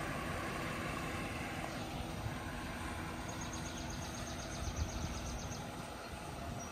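Steady outdoor rumble with a faint low hum beneath it. From about three to five and a half seconds in, a fast, high-pitched ticking trill repeats about ten times a second.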